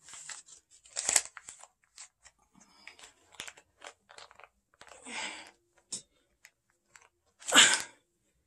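Rustling of coat fabric and crinkling of paper banknotes as cash is pulled out from inside clothing, with scattered soft clicks and a louder rustle near the end.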